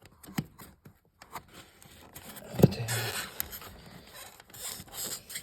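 Hands and a tool working at plastic car interior trim around a seatbelt anchor screw: scraping and rustling with scattered small clicks, and one sharp knock about two and a half seconds in.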